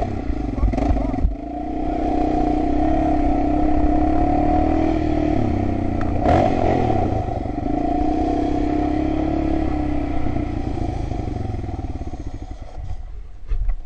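ATV engine running under way on a gravel road, a steady engine note louder from about a second in. The note dips around five seconds in, a knock follows about a second later, and the engine eases off toward the end.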